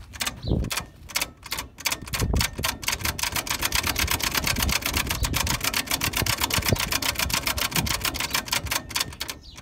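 Old truck's engine being cranked over on its starter, a fast even chatter of about seven beats a second that stops abruptly shortly before the end. The tank is out of gas.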